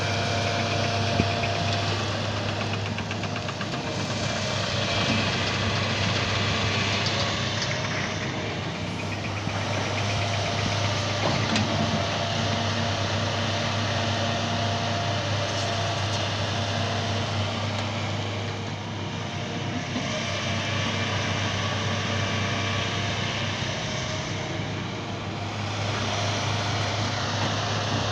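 Hitachi EX200 hydraulic excavator's diesel engine running steadily under load while it digs rocky soil, its level easing and swelling every several seconds with the work of the arm and bucket.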